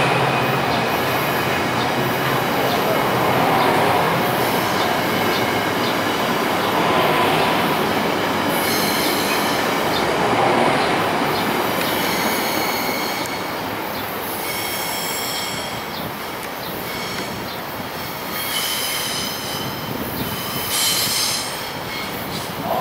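A VRE commuter train's bilevel passenger coaches rolling past as the train pulls out, steady rumble with light clicking of wheels over rail joints. From about nine seconds in, high squealing tones from the wheels join the rumble, which grows somewhat quieter as the train moves away.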